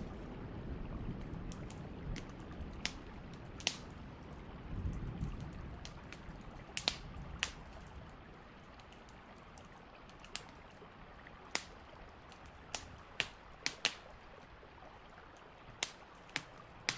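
Quiet rainy-evening room ambience: a soft hiss with a low rumble that fades out over the first six seconds or so, and a dozen or more sharp pops and ticks at irregular intervals.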